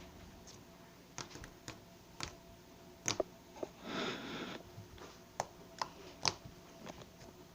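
Slime being squeezed and worked by hand: a string of sharp little clicks and pops, with one longer wet squelch about four seconds in.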